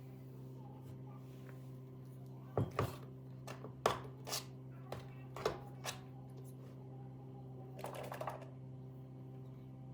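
Objects being handled and set down in a small room: a series of knocks and clicks, then a short rustle, over a steady low hum.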